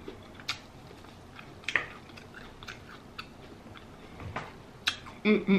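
Close-miked chewing of seafood-boil food, with a few sharp wet clicks and lip smacks. Near the end comes a short hum in the voice, louder than the chewing.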